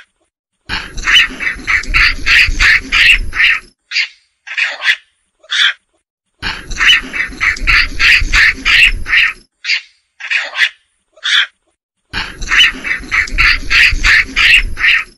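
Macaque calls: rapid runs of high calls, about three a second, each run lasting some three seconds over a low rumble, with single short calls between the runs. The same stretch repeats every five to six seconds.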